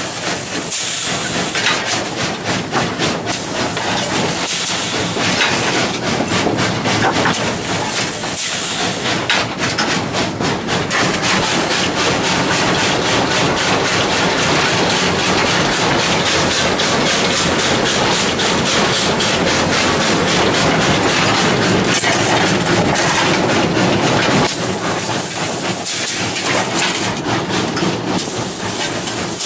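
Cab noise of a 1909 coal-fired steam locomotive under way: a steady loud din of the running engine and wheels, with a quick regular beat, cut by several bursts of steam hiss near the start and again near the end.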